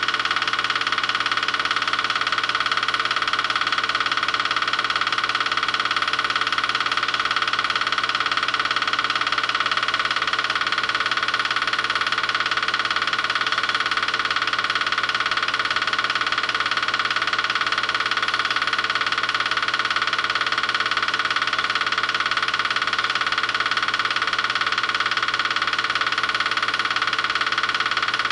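8mm film projector running steadily, an even mechanical whir that does not change.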